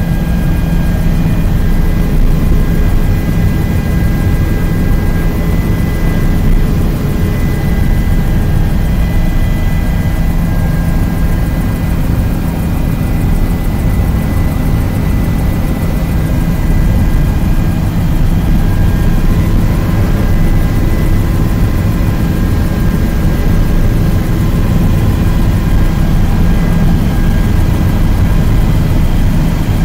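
Helicopter in flight heard from inside the cabin: steady, loud engine and rotor noise, a deep rumble with a few steady high whining tones over it.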